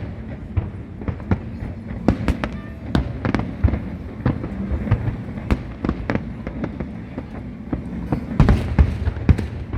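Fireworks bursting in an irregular run of sharp bangs and crackles, with a dense cluster of bursts near the end.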